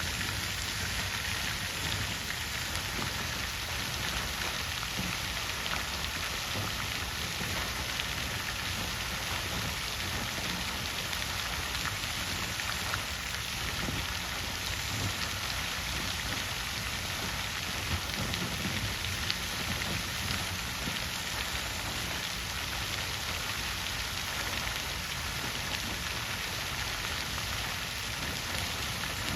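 Water fountain splashing steadily: a continuous, even rush of falling water.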